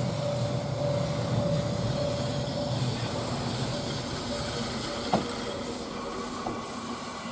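Kōnan Railway electric train pulling slowly into a station. A steady whine and low rumble fade after about three seconds as it slows, and there is a single sharp clack about five seconds in.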